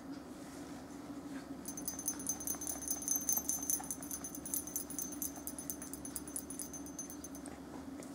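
Dog's collar tags jingling in a rapid, even rhythm of about eight shakes a second for roughly six seconds, starting and stopping abruptly.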